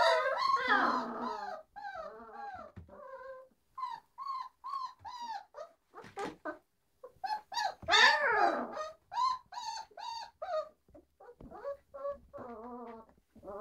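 15-day-old Great Dane puppies whining and squealing: many short, high-pitched calls, some overlapping, louder and denser near the start and again about 8 seconds in.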